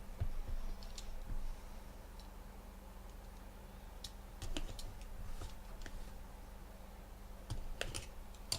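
Sports trading cards and their packaging being handled on a table: scattered light clicks and taps, in small clusters, over a faint steady hum.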